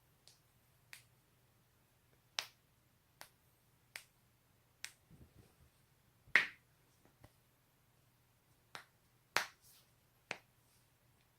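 Neck and back joints cracking: about ten sharp single pops, spaced irregularly a second or so apart, the loudest a little past halfway. A faint steady low hum lies underneath.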